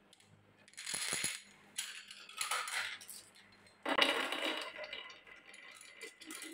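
Glass marbles clattering: a few short rattles, then about four seconds in a handful is let go on a wooden rail carved with wave-shaped grooves and rattles down the bumpy track.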